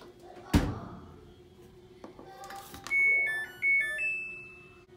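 A thunk about half a second in, then the electronic control panel of a top-loading washing machine beeping a short tune of stepped high tones as its buttons are pressed.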